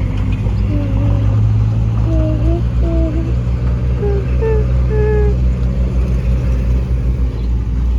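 Bulldozer's diesel engine running steadily under load, a deep continuous drone. Short higher-pitched chirps sound over it during the first five seconds.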